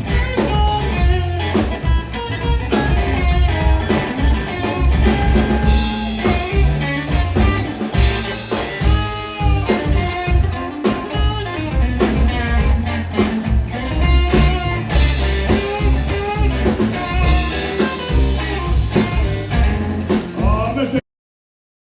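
Live blues band playing an instrumental stretch, electric guitar lead with bending notes over drums. The sound cuts out abruptly to silence about a second before the end.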